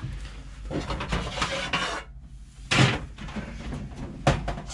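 Rummaging and handling of hard parts while fetching a spare hot-water circulating pump part: rustling and scraping, then a loud clatter a little before the three-second mark and a sharp knock near the end.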